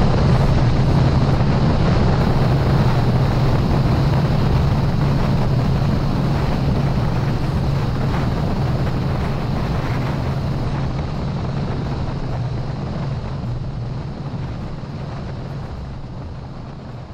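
Bass boat's outboard motor running steadily at speed, a low drone under the rush of wind buffeting the microphone and water passing the hull. The whole sound slowly grows quieter.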